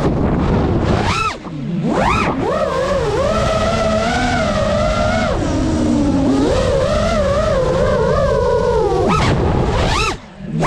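FPV quadcopter's brushless motors whining. The pitch swoops up sharply on throttle punches about a second and two seconds in and again near the end, dips briefly as the throttle is cut, and wavers through a steadier stretch in the middle.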